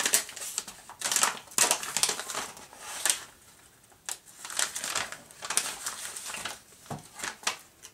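A sheet of white paper wrapping crinkling and rustling in irregular bursts as it is handled and unfolded by hand.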